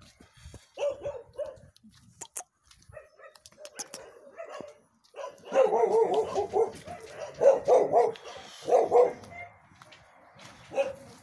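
Shelter dogs barking, a few short barks at first and then a louder, denser run of barking for a few seconds around the middle.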